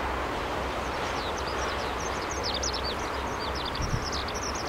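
Steady distant roar of a JASDF T-400 trainer's twin turbofans as it flies overhead. From about half a second in, small birds chirp rapidly over it in many short, high, falling chirps, and a soft bump comes near the end.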